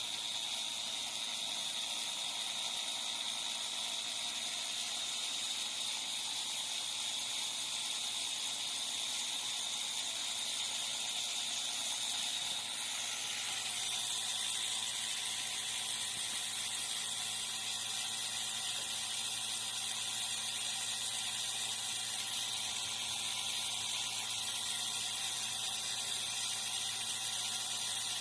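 Refrigeration vacuum pump running steadily, evacuating a refrigerator's sealed system through the gauge manifold before it is charged with R600a. A steady high whine over a low hum, shifting slightly in tone about halfway through.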